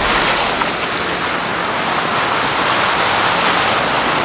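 Creek water rushing steadily over a low-water crossing, with vehicle tyres splashing through it.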